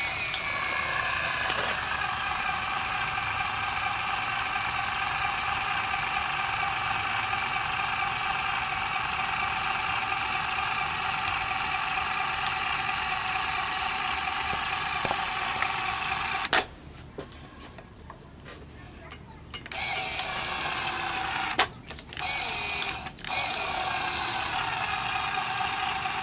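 Battery-powered electric caulk gun's motor whining steadily as it drives the plunger, squeezing out a bead of thick auto-glass urethane adhesive and working hard against it. The whine stops about 16 seconds in, then starts and stops twice more near the end as the trigger is let go and pulled again.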